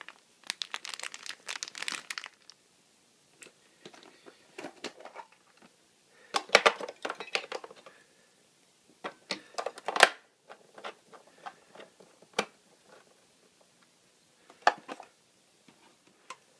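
Clear plastic bag of toy juice cans crinkling as it is handled, in two bouts, followed by scattered sharp clicks and knocks of hard plastic toy parts.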